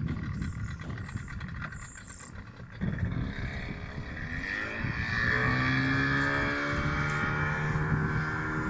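Outboard motor on a small motorboat: a low rumble at first, then about three seconds in it opens up, its pitch rising for a couple of seconds before holding steady at high revs as the boat gets up on the plane.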